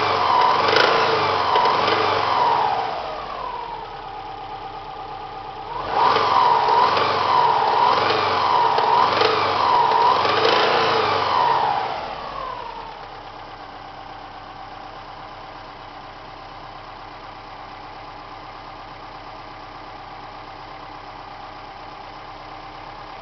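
Subaru Impreza GT's turbocharged flat-four engine revved in quick rising-and-falling blips, in two spells with a short idle between them, then settling to a steady idle for the last ten seconds.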